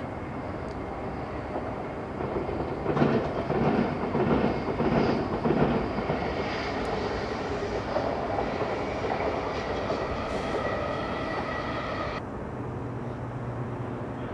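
Electric train passing on the track below: wheels clattering unevenly over the rails for a few seconds, then a steady high whine that cuts off suddenly about twelve seconds in, leaving a low hum.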